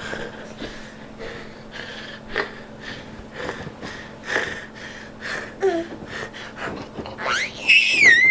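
Baby huffing with quick excited breaths while crawling, then letting out a high squeal that rises and falls near the end.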